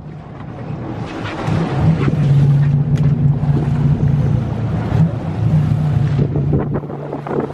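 Sportfishing boat's engine running with a steady low hum, over wind on the microphone and water rushing along the hull, with one sharp click about three seconds in.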